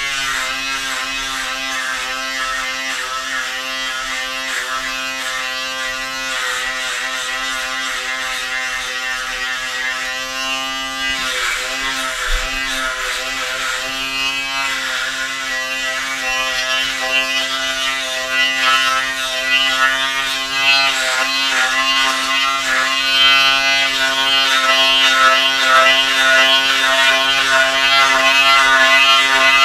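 Handheld electric shaver running with a steady buzzing hum, its pitch dipping briefly a few times as it works through beard hair on the cheek. The hum grows louder toward the end.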